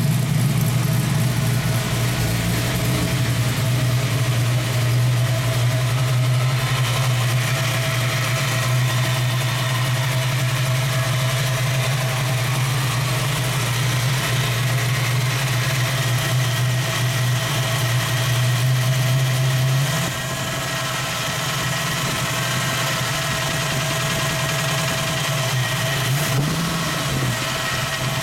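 A new engine running steadily near idle with the knock/rattle its owner is trying to identify, which he suspects may be a bad lifter. About twenty seconds in the engine note drops slightly, and near the end the speed briefly rises and falls.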